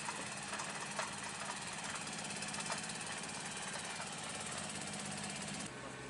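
An engine running steadily, a low hum with a few faint ticks; the sound changes abruptly near the end.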